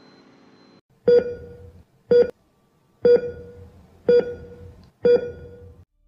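Five electronic beeps about a second apart, each a short pitched tone that starts sharply and fades away; the second is clipped short.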